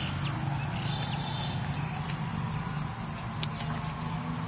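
Outdoor ambience: a steady low hum with a few short, high bird chirps, one about a second in, and a single sharp click a little past three seconds.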